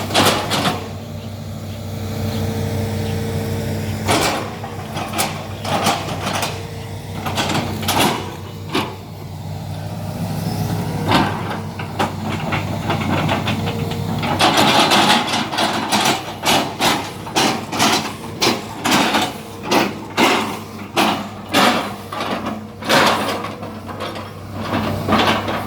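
Excavator's engine running steadily, with many sharp knocks and crunches as the bucket chops oil palm trunks, and a burst of dense crunching about midway.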